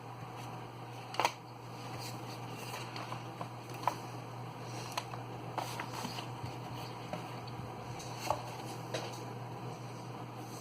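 Hands handling the packaging and device during an unboxing: scattered light taps, clicks and rustles, the sharpest about a second in, near four seconds and just past eight seconds, over a steady low hum.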